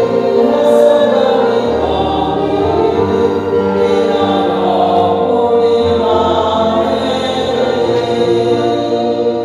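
Choir singing a slow, hymn-like piece over held chords that change every second or two.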